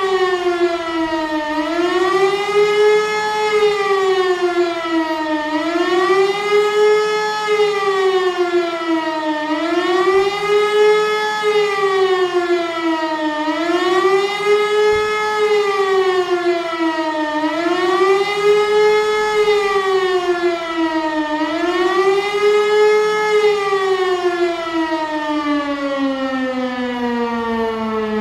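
E57 electromechanical civil-defence siren sounding a test alarm: a loud wail whose pitch rises and falls about every four seconds. About 24 seconds in, the pitch starts falling steadily as the siren winds down.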